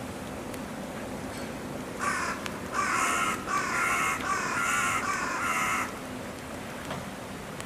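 An animal calling: a quick run of about five calls, each a little over half a second long, starting about two seconds in.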